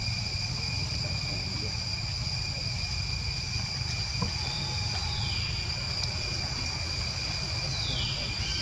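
Steady high-pitched insect drone from a chorus of insects, over a low rumble. Two short, high, falling calls come through, one about halfway and one near the end.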